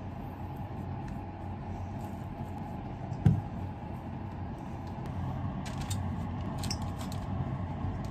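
A steady hum of kitchen background noise, with a single sharp knock about three seconds in as the serving spoon knocks against the stainless steel mixing bowl. A few faint small clicks follow later on.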